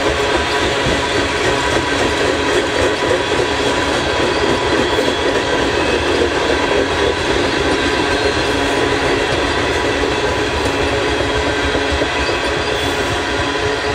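Freight cars of a CN freight train rolling past on steel rails, a steady loud rush of wheel-on-rail noise with several steady tones held over it.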